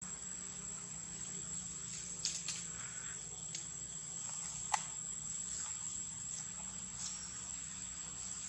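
Insects in the forest making a steady, high-pitched drone, with a few short clicks on top, the sharpest about five seconds in.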